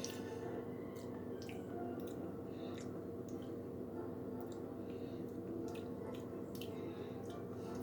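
A person chewing a mouthful of ice cream with crunchy streusel pieces: scattered faint wet mouth clicks over a steady background hum.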